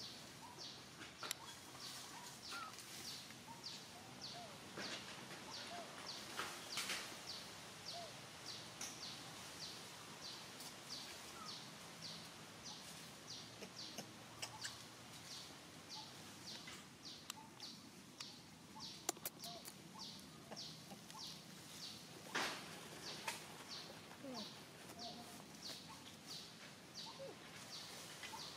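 A small bird calling a long, even series of short, high, falling chirps, about two a second, with an occasional faint knock or rustle.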